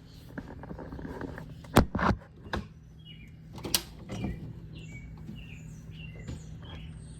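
A few loud knocks and bangs about two seconds in and again near four seconds, then a small bird chirping in short, high notes again and again. A steady low hum runs underneath.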